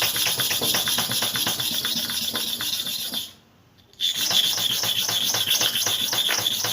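Hair clipper blade being stroked rapidly to and fro on a flat sharpening surface, a quick, even run of gritty scraping strokes to grind the blade flat. The strokes stop briefly a little past three seconds in, then start again.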